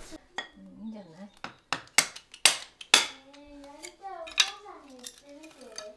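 Kindling being split and handled with a machete at a wood-fired stove: about five sharp wooden knocks over a couple of seconds, the loudest two to three seconds in, and another a little later. A voice talks quietly between them.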